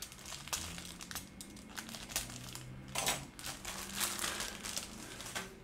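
Thin clear plastic parts bag crinkling and rustling in the hands in irregular bursts, the loudest about three seconds in.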